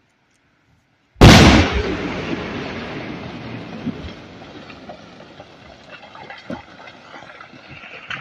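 An explosive charge detonates in a rocky hillside about a second in: one sharp, very loud bang followed by a long fading rumble, with scattered small clicks of debris over the following seconds.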